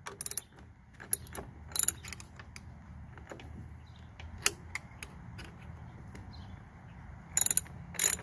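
Irregular metallic clicks and clinks of hand tools and a small nut as the nut is worked back onto its bolt in a lawn mower's drive, with a quicker run of clicks near the end.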